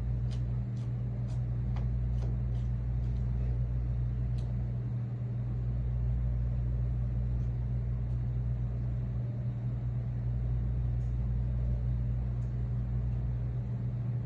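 Steady low electrical hum over a deep rumble, with a handful of light clicks in the first few seconds.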